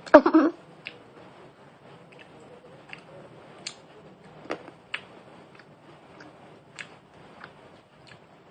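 Scattered light clicks and crinkles of small wrapped chocolates and their plastic packaging being handled, one short tick at a time.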